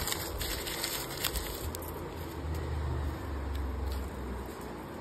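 Light crackling and rustling of crumpled paper against a bag's nylon lining, then a low rumble lasting about two seconds.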